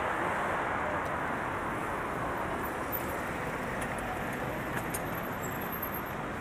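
Steady city street traffic noise: a continuous wash of passing cars and road noise.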